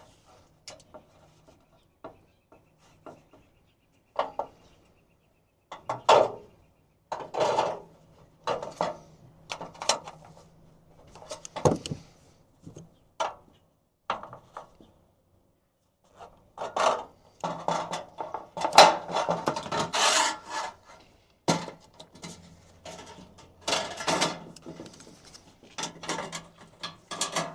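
Thin aluminum sheet being worked by hand and with pliers while folding the corners of a sill pan: irregular scraping, rubbing and crinkling of the metal, sparse at first and much busier in the second half.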